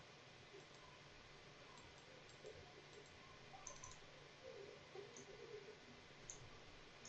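Near silence: faint room tone with a few soft computer mouse clicks.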